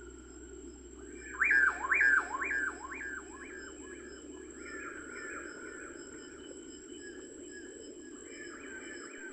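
A bird calling a series of repeated whistled notes, each sliding down in pitch, about two a second; loud for the first few notes, then fainter repeats keep going.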